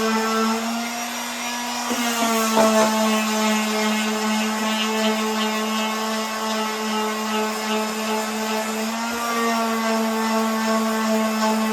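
Power sander running with a steady hum, sanding black paint off a Yamaha Raptor 700 ATV to get it ready for repainting. The pitch sags slightly about a second in and comes back up near nine seconds, with a few light knocks around two seconds in.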